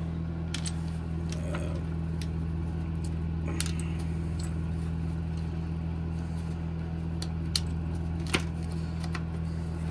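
Scattered clicks and light rattles from a plastic case of steel impact-driver bits being handled and shut, the loudest click about eight seconds in. A steady low hum runs underneath.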